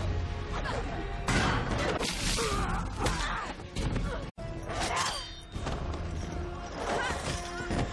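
Movie fight-scene soundtrack: dramatic score under thuds, crashes and shattering of blows and falls. A brief dropout about four seconds in marks a splice between two clips.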